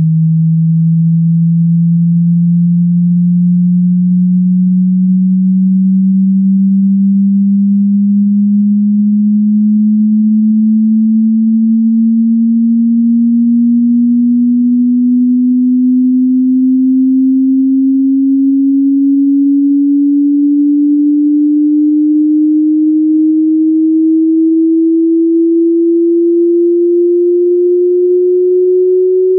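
A pure sine-wave test tone gliding slowly and steadily upward in pitch, from a low hum to a somewhat higher tone, at an even level throughout. It is the rising frequency sweep of an online hearing test.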